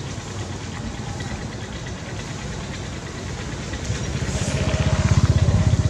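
A motor engine running with a fast, even low throb, growing louder about four seconds in.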